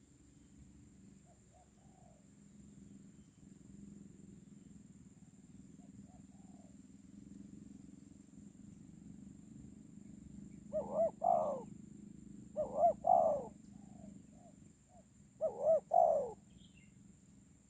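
Spotted doves cooing: a few faint coos first, then three loud cooing phrases in the second half, each phrase a short run of notes.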